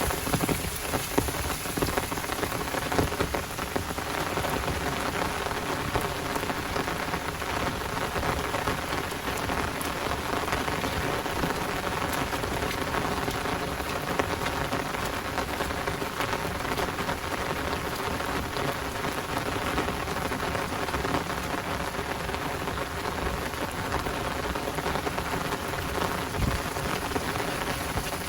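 Heavy rain falling steadily, a dense hiss of many close drop hits.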